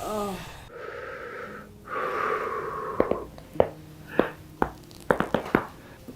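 A person's short low moan and heavy breaths in and out, then a quick run of about eight sharp cracks over two and a half seconds: spinal joints popping under a chiropractic adjustment.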